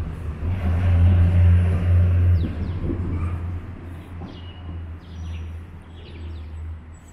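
A motor vehicle's engine rumbling as it passes close on the street, loudest in the first couple of seconds and then fading. Short high chirps of birds come in about midway.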